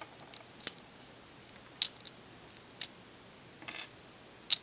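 Plastic pieces of a V-Cube 4 puzzle cube clicking against each other as they are handled and fitted together: about six short, sharp clicks at uneven intervals.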